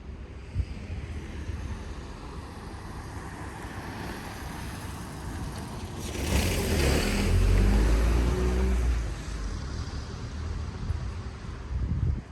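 A motor vehicle passes close by on the street: its engine and tyre noise build up over several seconds, peak about six to nine seconds in, then fade away.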